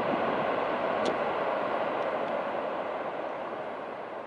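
Boeing 747 jet engines, a steady broad roar as the four-engined jumbo comes in to land, slowly fading.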